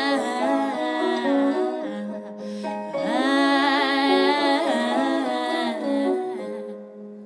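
Female voice singing a wordless melody in two long phrases with vibrato, over sustained accompanying chords. It fades away near the end.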